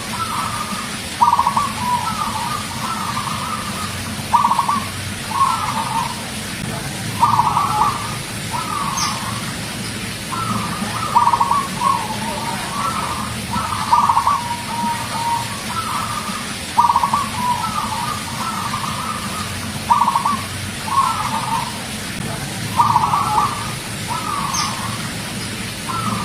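Zebra dove (perkutut) cooing: a string of short trilling coo phrases, one every second or two.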